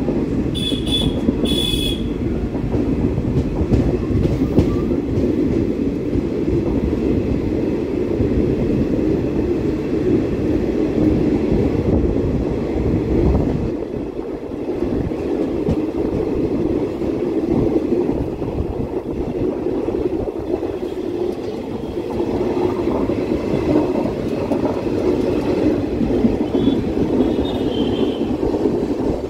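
Indian Railways train running along the track: a steady low rumble that eases briefly about halfway through.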